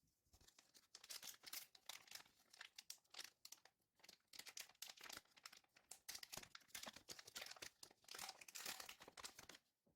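Faint crinkling and tearing of a Kayou trading card booster pack wrapper being opened by hand, a run of small crackles from about a second in until near the end.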